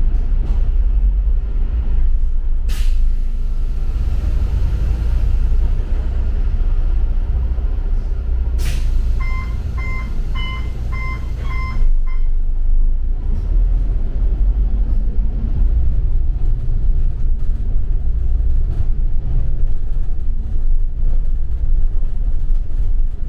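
Double-decker bus heard from inside, its engine and road noise a steady low rumble, with two short pneumatic air hisses and then a run of five short electronic beeps about two seconds later.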